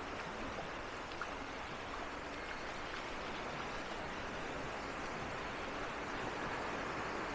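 Steady wash of beach surf and sea breeze, an even rushing noise with no single event standing out.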